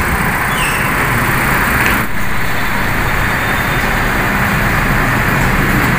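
Steady vehicle and road noise from a car on the move, with a brief dip about two seconds in.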